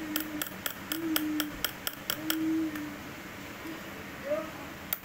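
Sharp metallic clicks from a steel knife blade, about four a second for two and a half seconds, then a single click near the end.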